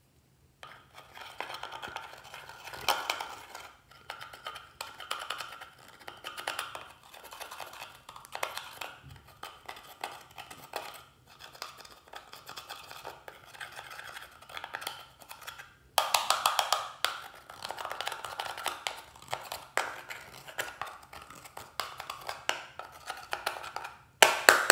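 A thin tool scraping and tapping at pressed eyeshadow in a compact palette: a quick, uneven run of scratchy clicks, louder in the last third.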